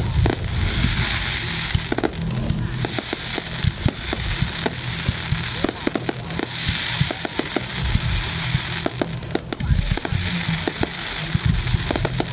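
Aerial fireworks bursting: a continuous string of sharp bangs and pops, with a hissing crackle swelling up every few seconds.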